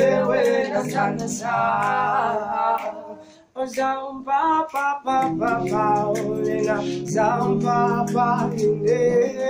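A group of male voices singing together in harmony. The singing stops briefly about three and a half seconds in, then goes on.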